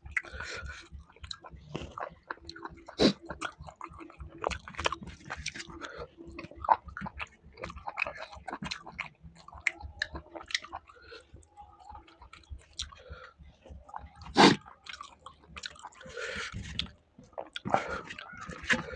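A person chewing and biting food close to the microphone: a meal of spicy chicken fry with rice and tomato rasam, giving wet mouth sounds and irregular crunches and clicks. One sharp, loud click comes about fourteen and a half seconds in.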